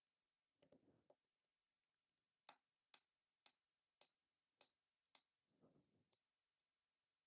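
Near silence, with faint sharp clicks about twice a second through the middle and soft handling rustles around them, as a screwdriver loosens the screws on a laptop's bottom cover.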